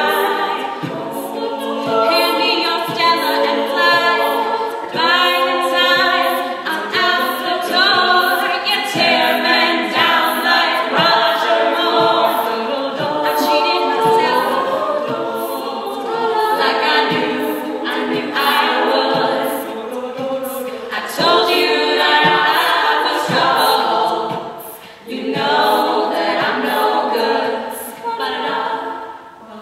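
All-female a cappella group singing: a lead voice over sung backing harmonies, with a vocal-percussion beat of short, regular clicks.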